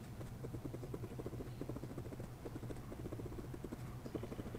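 Fine steel nib of a Koh-I-Noor technical pen tapping and scratching on paper in quick short hatching strokes: a rapid run of soft ticks, several a second, over a steady low hum.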